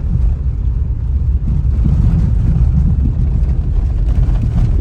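A car driving, its road and engine noise heard from inside the cabin as a loud, steady low rumble.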